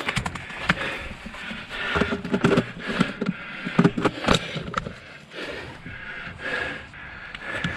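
Close rustling and scraping of clothing and gear, with irregular sharp clicks and knocks, as the player shifts and moves behind a log barricade.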